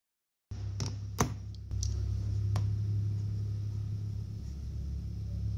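A steady low hum starts about half a second in, with a few sharp clicks over the next two seconds, the loudest about a second in.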